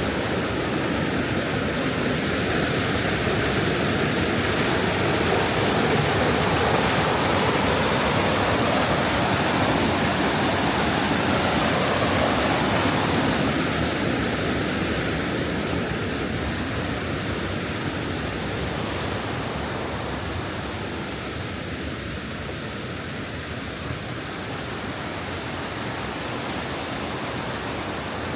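Steady rushing of a mountain stream and its waterfalls, growing a little louder through the first half, then gradually easing.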